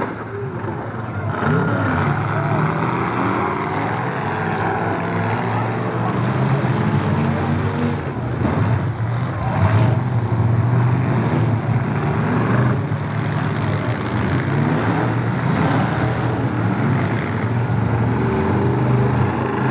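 Demolition derby pickup trucks' engines running and revving hard, with a few metal crashes as the trucks ram each other.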